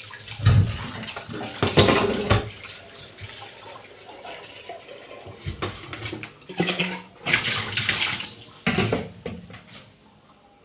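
Water running and splashing in two spells, the first from about half a second to two and a half seconds in, the second from about six and a half to nine seconds, with a few knocks of kitchenware among it.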